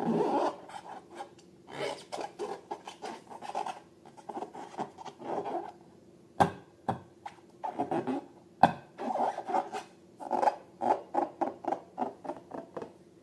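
Hands working slime and balloons: a quick run of short rubbing and scratching sounds, with two sharp clicks partway through.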